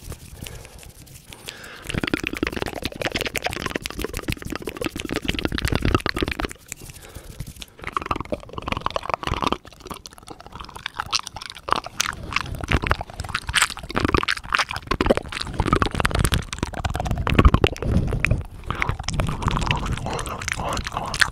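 Rapid ASMR tongue and finger fluttering made right at a microphone: fast, dense clicking and smacking mouth sounds, with hands cupped over the mouth. Brief lulls come near the start and a few times in between.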